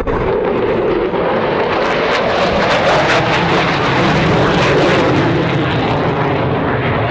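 Eurofighter Typhoon's twin Eurojet EJ200 turbofans on a high-speed pass at just under 700 mph: a loud jet roar that builds to a crackling peak a few seconds in, then eases off.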